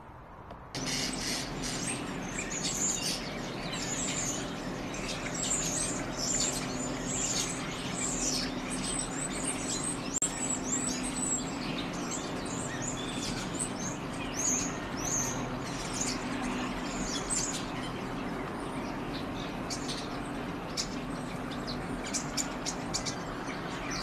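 European starlings chattering: a dense run of short, high chirps, whistles and clicks from several birds, starting about a second in, over a steady low hum.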